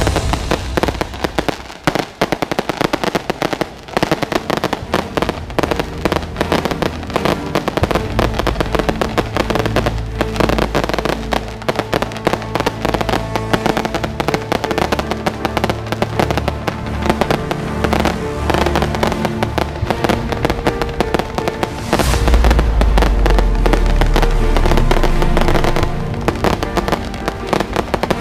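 Fireworks and strings of firecrackers going off in a dense, continuous crackle of rapid bangs, with music playing underneath.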